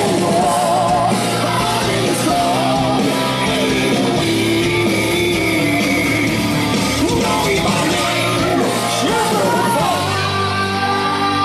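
Rock song with a singing voice, playing continuously and moving into a new section near the end.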